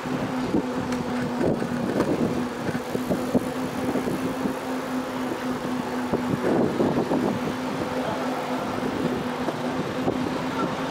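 Bicycle riding along a city street with traffic: road and wind noise, a steady low hum, and frequent light rattles and knocks.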